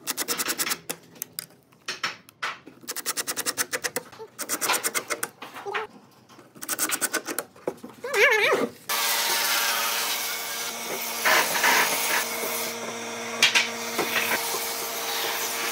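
Cordless impact driver hammering screws through concealed cabinet hinge plates into a wooden door, in several short bursts of rapid clicking. About nine seconds in, a steady hum with a hiss takes over.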